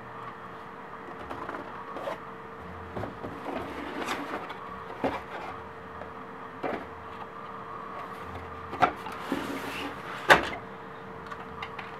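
Cardboard motherboard box being handled and opened, with scattered rustles and knocks of cardboard and paper, the sharpest knock about ten seconds in. A faint steady hum runs underneath.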